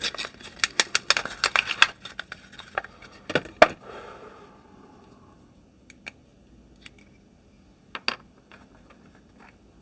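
Close handling of small hard plastic objects: a quick run of clicks and rustles over the first few seconds with two louder knocks, then only a few scattered taps.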